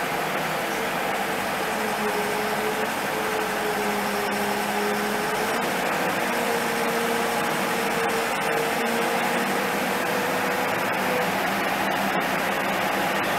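Excavator engine running steadily, with a humming tone that wavers slightly in pitch and fades out about eleven seconds in.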